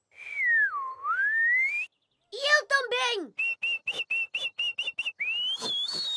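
Cartoon characters whistling. First comes a swooping whistle that dips down and rises back up, then a few short squeaky chirps falling in pitch. Then a quick run of about five short whistled notes a second on one pitch, and finally a whistle rising in pitch.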